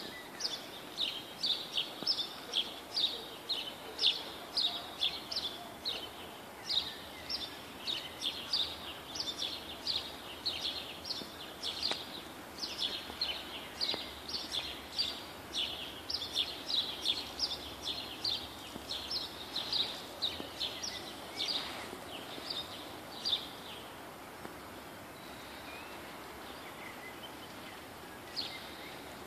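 A small bird chirping over and over, about two short high chirps a second, over steady outdoor background noise; the chirping stops near the end.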